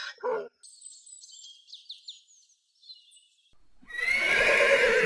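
A horse neighing loudly, beginning a little under four seconds in and still going at the end. Before it come a few faint, high chirps.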